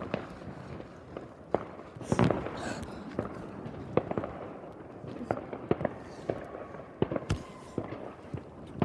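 New Year's fireworks going off all around: many separate bangs and cracks at irregular intervals, with a louder burst about two seconds in.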